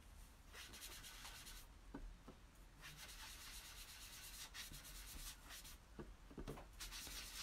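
Ink sponge rubbing ink onto cardstock: faint rubbing in several strokes of about a second each.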